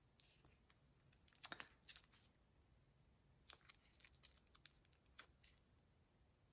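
Faint, scattered clicks and light crinkling of small plastic packaging being handled while a little glaze container from a Miniverse Make It kit is opened.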